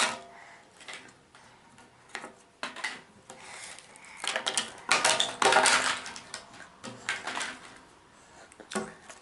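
Jigsaw puzzle pieces being handled and dropped on a hard surface: scattered small clicks and rattles, busiest from about four to six and a half seconds in.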